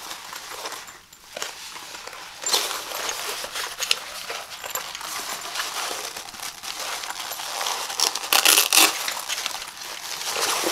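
Rustling of a fabric laptop backpack being handled, its flaps and inner compartments pulled open and felt by hand, with a louder brief rasp about eight seconds in.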